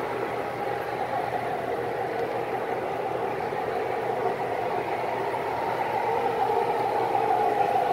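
O-scale three-rail model freight cars rolling past on the track, a steady metal-wheel rolling hum that grows slightly louder near the end.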